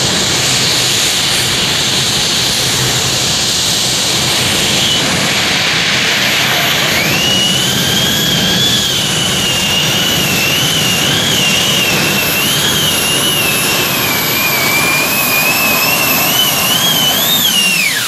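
Gas turbine engines of a multi-turbine modified pulling tractor running loud and steady, a jet-like rush of noise. From about seven seconds in a high turbine whine comes in and wavers up and down in pitch, falling away at the very end.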